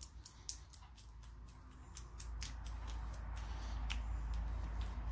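Small sticky clicks and squelches of grease being pressed by hand through a wheel roller bearing as it is packed, with a low rumble building from about two seconds in.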